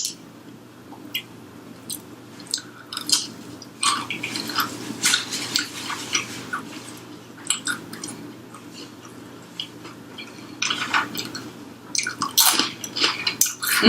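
A person chewing with wet smacks and clicks of the mouth close to the microphone, coming irregularly several times a second.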